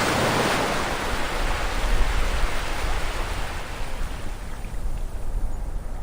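Ocean waves on a shore: a wave surges in just as the sound begins and then fades away over several seconds, over a steady low rumble of surf.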